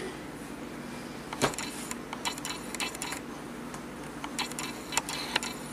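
Scattered light clicks and taps, the sharpest about a second and a half in, with a cluster just after it and a few more near the end, over a faint steady hum.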